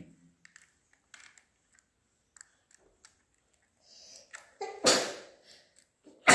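Plastic housing of a Bluetooth speaker being pried and pulled apart: a few faint clicks and scrapes, then two loud sharp snapping noises about a second and a half apart, the second near the end.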